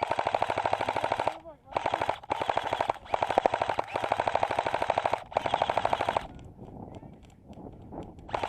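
Airsoft rifle firing long full-auto bursts, a fast even rattle of shots. There are four bursts with short gaps over about six seconds, then a brief burst right at the end.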